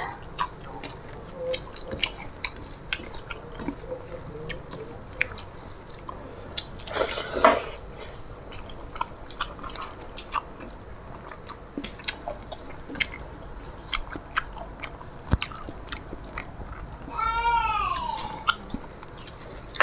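Close-miked chewing and mouth clicks of two people eating rice and curry with their hands, with soft squelches of fingers mixing rice. A short, louder noisy rasp comes about seven seconds in, and a brief high-pitched rising-and-falling cry near the end.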